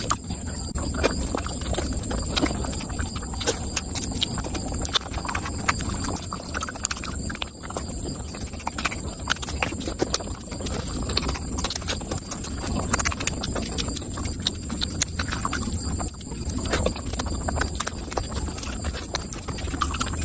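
Close-miked chewing and lip-smacking of mutton curry eaten by hand in big bites: a rapid, uneven run of wet smacks and clicks over a steady low hum.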